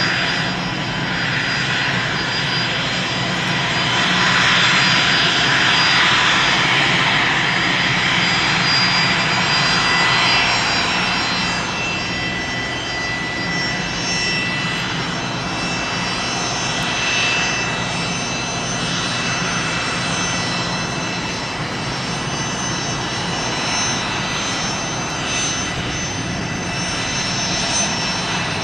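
Gulfstream IV business jet taxiing, its two Rolls-Royce Tay turbofans running at taxi power with a steady high-pitched whine over a rush of engine noise. The noise swells over the first ten seconds or so, then settles to an even level.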